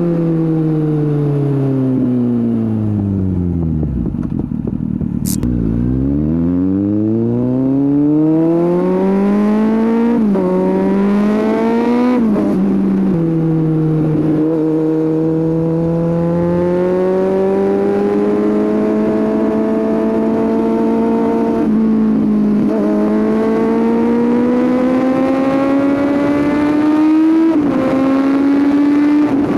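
Kawasaki Z800's inline-four engine through a Scorpion aftermarket exhaust, engine speed falling steadily for the first few seconds as the bike slows. It then picks up and climbs again as the bike accelerates through the gears, with a brief jump and drop in pitch at each shift. A single sharp click is heard near the lowest point.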